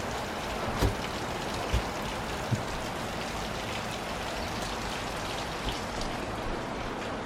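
Steady rain falling, with scattered sharper drop taps and a few dull thumps in the first three seconds.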